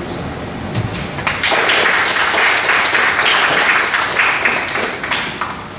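Audience applauding, starting about a second in, holding strong for a few seconds and then thinning out near the end.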